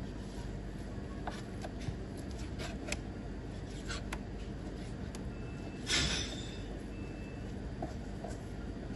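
Knife cutting lamb on a cutting board: scattered light knocks and clicks, with one louder, longer scrape about six seconds in.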